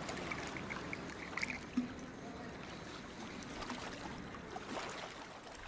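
Water poured in a thin, faint, steady trickle while 230 ml is measured out for the noodles.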